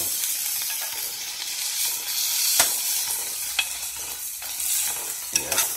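Kidneys and sliced onions sizzling in a metal frying pan, with a few sharp clicks of a knife blade stirring against the pan.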